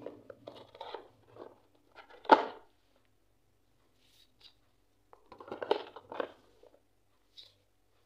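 Handling noise from unboxing a smartphone: the cardboard box and packaging rustle and shift. One sharp knock about two seconds in, then another short cluster of rustles and clicks a little past the middle.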